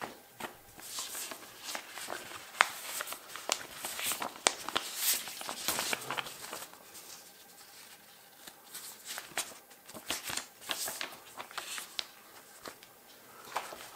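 Paper and thin card rustling and sliding as a documentation sleeve and its leaflets and stickers are handled in cotton gloves, with frequent sharp clicks and taps. It goes quieter for a moment midway.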